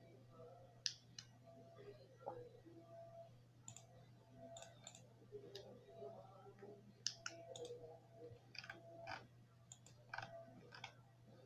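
Faint radio receiver noise: irregular sharp clicks, some in quick pairs, and short broken tones over a steady low hum.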